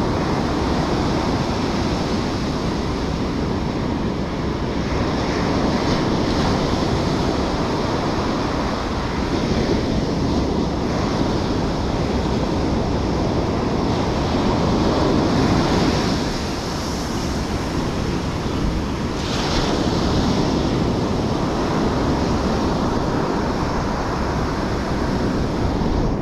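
Ocean surf washing onto the beach, with wind buffeting the microphone; the wash swells and eases every few seconds.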